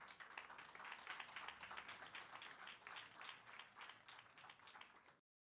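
Faint applause, many hands clapping at once in a dense irregular patter, cut off abruptly about five seconds in.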